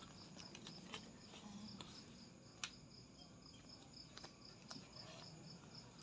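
Faint insect chirping, a high pulsing note repeating about four times a second, with a few scattered faint clicks and one sharper click about two and a half seconds in.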